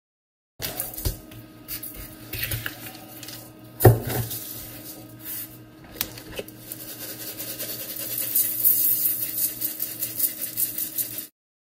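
Coarse kosher salt and then a dry pork rub shaken from shakers onto a raw pork butt, the grains pattering on the counter, with small clicks and one sharp knock about four seconds in. Near the end the shaking becomes a quick, steady rhythm of hissing rattles.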